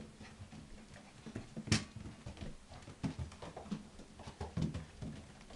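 Black standard goldendoodle puppies scampering and playing on a hard floor: scattered light taps and knocks of paws and claws, with one louder sharp knock nearly two seconds in.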